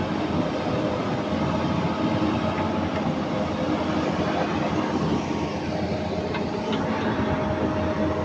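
Volvo 360BLC excavator's diesel engine and hydraulic pumps running steadily under load, with a steady whine over a dense rumble, as the machine is worked to test its hydraulic power after an adjustment of the pump's oil flow.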